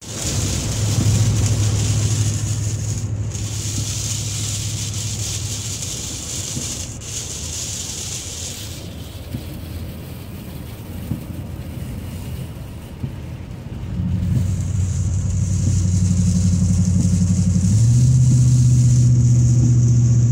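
Pickup truck's engine droning steadily inside the cab while towing a loaded trailer, with a high hiss from the wet road. About 14 seconds in the engine pulls harder and gets louder, and its pitch steps up near 18 seconds.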